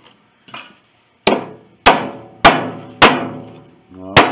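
A rubber mallet strikes the wooden pinblock of an antique grand piano five times in quick succession, about 0.6 s apart, trying to knock it free of the cast-iron plate. The plate rings after each blow.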